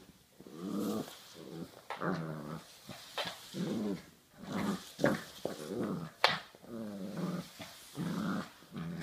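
Puppy growling in a string of short growls while tugging on a rope toy, with one sharp knock about six seconds in.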